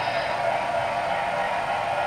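HO scale model freight train running on the layout, a steady rushing noise with a faint high-pitched whine.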